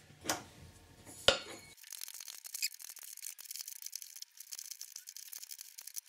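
Pliers gripping and turning a nut on a metal bolt: small metallic clicks and light scraping, with a sharp click about a second in.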